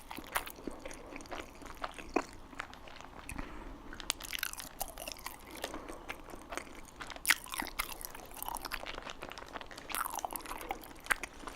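Close-up chewing and biting of chili dogs, with many short, irregular mouth clicks.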